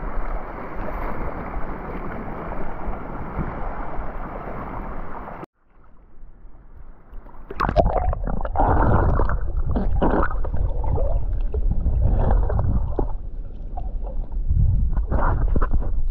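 Shallow channel water rushing and splashing around wading legs, cutting off suddenly about five seconds in. After a short lull comes the muffled sound of water heard with the camera underwater as a snorkeler swims: a low rumble with bubbling and sloshing splashes.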